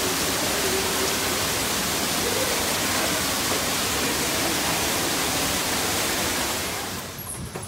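A loud, steady rushing hiss that drops away about seven seconds in.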